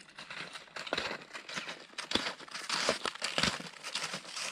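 Skis and boots crunching and scraping over snow in irregular strokes as a skier with a heavy pack shuffles forward.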